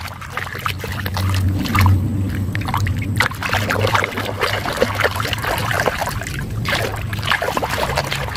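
Muddy, foamy water sloshing and splashing in a plastic basin as a hand swishes back and forth through it, an irregular run of small splashes.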